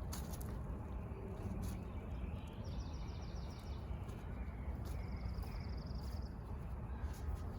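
Outdoor background of a steady low rumble, over which a small bird sings a rapid high trill twice, each about a second long. A few faint clicks come and go.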